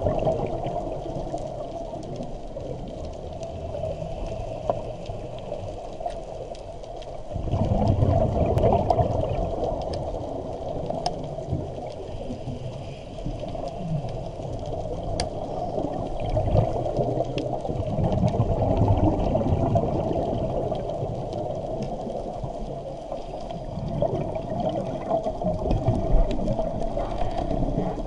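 Underwater sound of scuba diving: regulator exhaust bubbles gurgling in swells every few seconds as divers breathe, over a steady rush of water.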